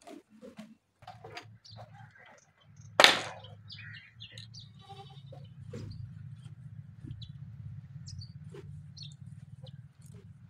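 Goats bleating while green fodder is handled at a wooden feeding trough, with scattered short rustles and knocks. A loud, sharp sound about three seconds in is the loudest moment, over a steady low hum.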